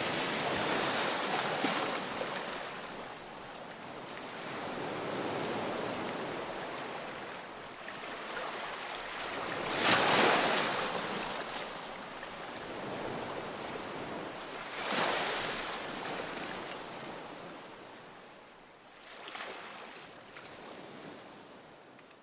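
Whooshing, surf-like rushing noise from a TV title sequence's sound effect. It swells loudest about ten seconds in and again around fifteen, then fades toward the end.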